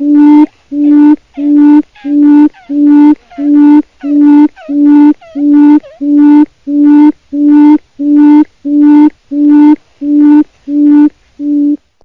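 A quail calling: a steady series of short, low hooting notes, each held on one pitch, repeating evenly about one and a half times a second, about eighteen in all. The calling stops abruptly near the end.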